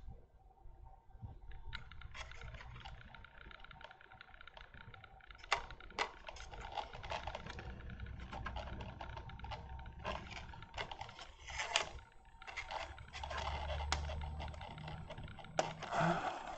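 Irregular light clicks, taps and rustling from hands handling a small scale model biplane while threading its rigging.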